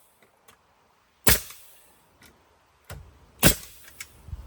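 Nails being driven into the new wooden band board: two loud, sharp strikes about two seconds apart, with a few lighter knocks between.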